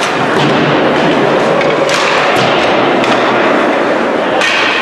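Ice hockey play in an indoor rink: skates scraping the ice and sticks and puck knocking, over a steady noisy rink background. A few sharp knocks stand out about two seconds in and again near the end.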